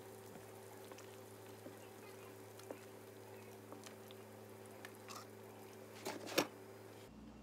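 A plastic ladle stirring soup in a stainless-steel pot, faint scattered clicks over a steady low hum. About six seconds in, a glass lid clinks down onto the pot, the loudest sound.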